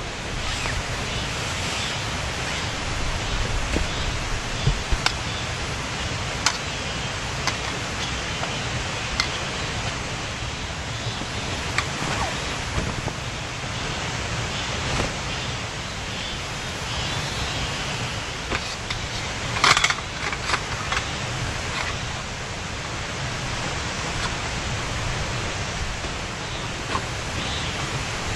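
Steady rushing of a swollen mountain stream, an even full noise, with a few sharp clicks and knocks on top, the loudest a brief cluster about twenty seconds in.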